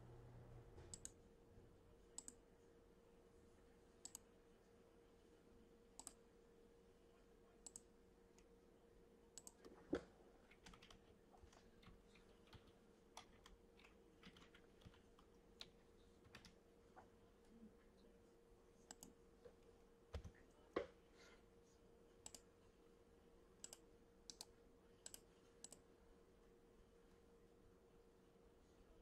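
Near silence with faint, scattered clicks of a computer keyboard and mouse, one every second or two, plus a couple of slightly louder knocks. A faint steady hum sits underneath.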